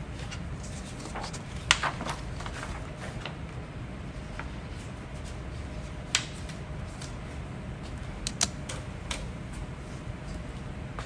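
A person hiccuping slowly: a few short, sharp hiccups several seconds apart, the loudest about two seconds in, with a quick double hiccup near the end.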